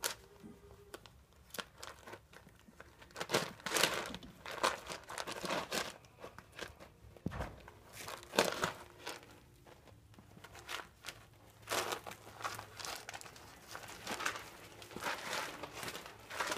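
Pellet litter and its liner crunching and crinkling in irregular bursts as Barbet puppies walk and scramble about in their potty box.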